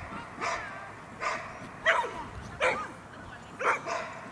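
A small dog barking repeatedly: about five short, high barks, each less than a second apart.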